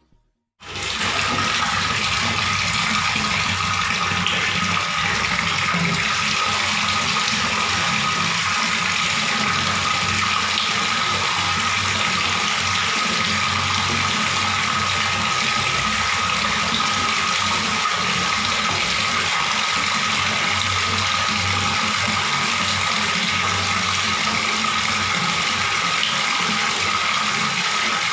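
Water running steadily from a tap, an even splashing rush that starts just after a moment of silence and holds at a constant level.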